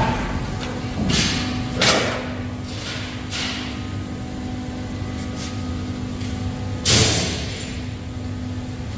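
A large metal treadplate sheet wobbling and rattling as it is carried, with sudden loud swells about a second in, around two seconds and, loudest, near seven seconds, over the steady hum of the hydraulic press brake's power unit.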